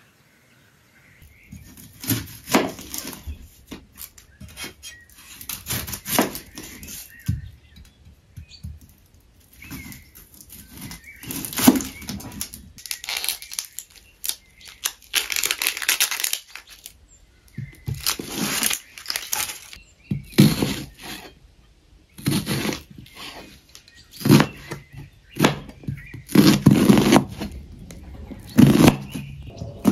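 Papery onion skin crackling and tearing as an onion is peeled by hand, then a kitchen knife cutting through the onion and striking a plastic cutting board in uneven strokes.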